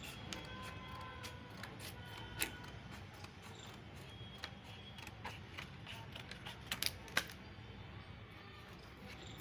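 Scissors cutting through a stiff printed PVC ID-card sheet: a run of sharp clicking snips and crackles, the loudest about two and a half seconds in and a cluster around seven seconds.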